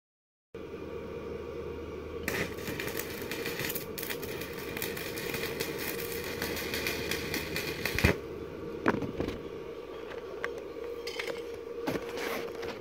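Electric arc welding: the arc gives a dense crackling hiss that starts about two seconds in and cuts off sharply around eight seconds, over a steady hum. A few clicks and knocks follow after the arc stops.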